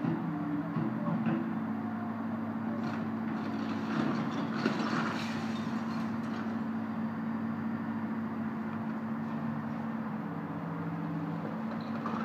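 Diesel engine of a hydraulic excavator running steadily during demolition work on a house, with a burst of clatter and crunching about four to five seconds in.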